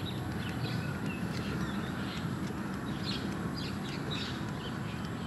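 Birds calling from the trees: many short chirps and calls, several a second, over a steady low rumble.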